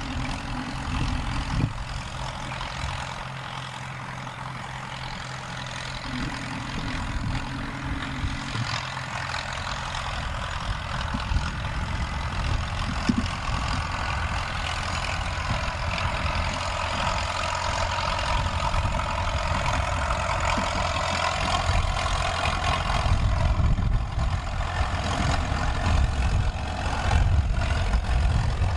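Leyland 262 Synchro tractor's three-cylinder diesel engine running steadily while towing a land roller across grass, growing louder over the last half as the tractor comes closer.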